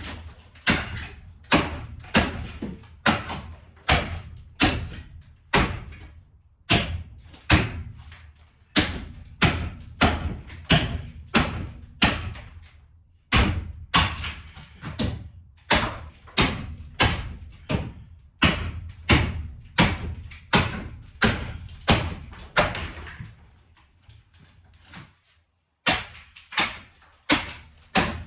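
A steady run of hard knocks or blows, about one and a half a second, pausing briefly about 24 seconds in.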